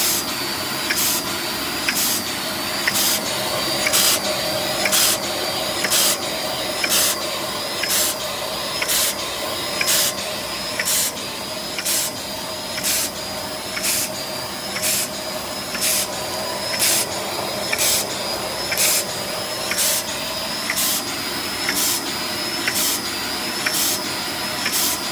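Automatic capsule filling machine running: a steady mechanical hum under short hisses that repeat at an even rhythm, with a louder peak about once a second.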